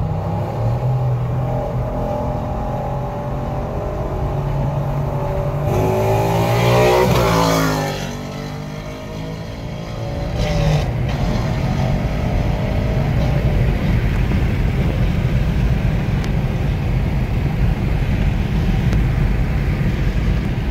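Ford Mustang GT's 5.0 Coyote V8, with its resonator and catalytic converters deleted, accelerating hard. It builds to a loud, rising rev about seven seconds in, then falls away as the car pulls ahead. After that comes a steady low drone of engine and road noise from the following car.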